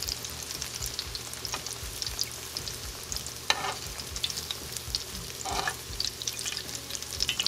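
Cornflake-coated avocado slices shallow-frying in canola oil in a cast iron skillet: a steady sizzle with many small crackles and pops. Two short louder noises come about three and a half and five and a half seconds in.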